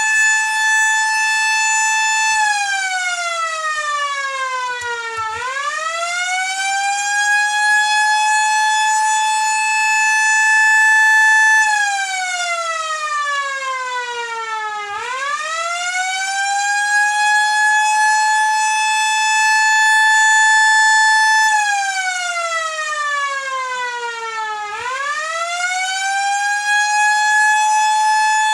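Tornado warning siren sounding a wail, which signals a tornado warning. A high steady tone slides down over about three seconds, then sweeps quickly back up and holds, repeating about every ten seconds, three times.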